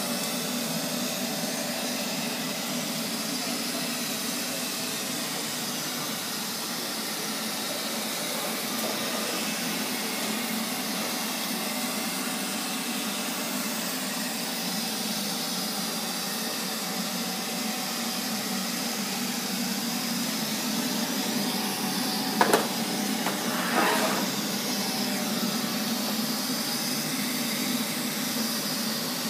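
Neato XV-25 robot vacuum running steadily: a constant motor hum with an airy hiss. About 22 seconds in, a sharp knock, then a second brief, louder noise about a second later.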